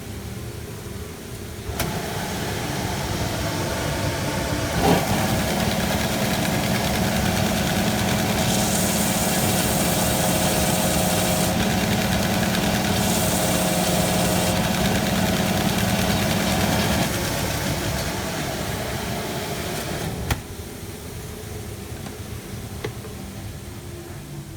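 Workshop dust extractor and belt sander running with a steady motor hum. Twice near the middle, material pressed against the moving abrasive belt adds a higher sanding hiss. About two-thirds of the way through the sander winds down, and after a click a quieter steady hum carries on.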